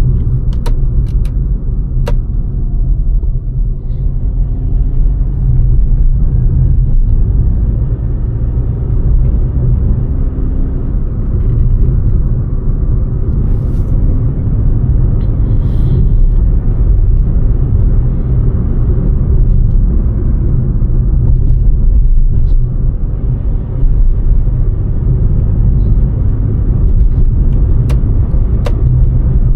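Maruti Fronx Sigma on the move: a steady, loud low rumble of road and engine noise, with a few sharp clicks near the start and again near the end.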